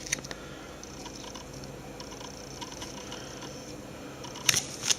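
Quiet handling of small parts, with a few faint ticks, then two sharp clicks near the end.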